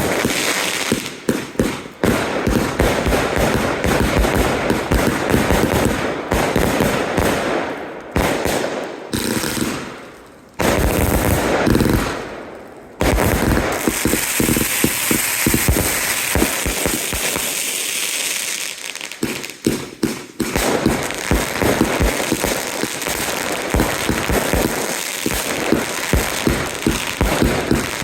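Consumer fireworks going off in rapid succession: a dense stream of bangs and crackle from rockets and barrage cakes. It cuts out abruptly twice near the middle before the bangs resume.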